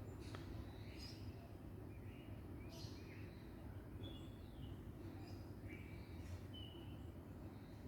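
Pet bird of an Australian species giving soft, scattered short chirps and brief whistles, with a few light clicks, over a steady low background hum.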